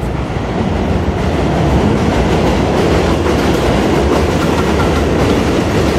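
Elevated J-line subway train running on the steel el structure overhead; it grows louder over the first second, then holds loud and steady.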